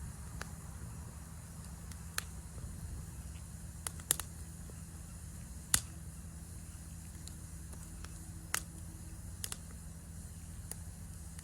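Wood campfire crackling: sharp pops at irregular intervals, about eight of them, over a steady low rumble and high hiss.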